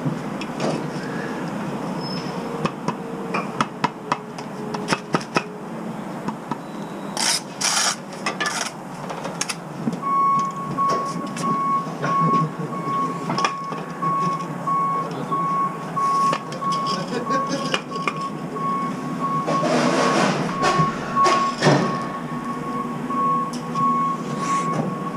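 Bricklaying on a scaffold: sharp knocks and taps on brickwork as bricks are laid and checked with a spirit level. From about ten seconds in, a vehicle's reversing alarm beeps at a steady rhythm.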